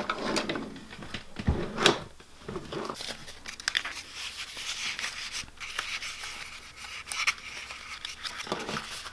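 Paper and sticker sheets being handled, rustling and crinkling, with scattered small clicks and a sharper knock a little under two seconds in.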